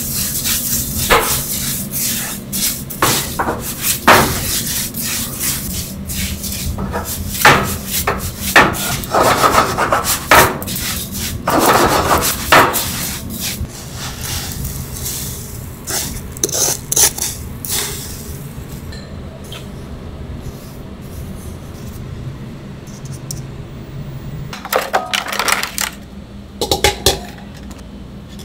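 Wooden spoon stirring and scraping damp, red-tinted breadcrumbs around a nonstick frying pan: irregular scrapes and knocks against the pan. It goes quieter past the middle, and a few sharper clacks come near the end.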